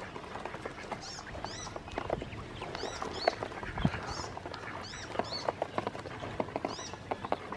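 Ducklings peeping in short, high, arched chirps, often two in quick succession. Under them runs a dense, irregular clicking as their bills peck feed grains off the bottom of a plastic basin.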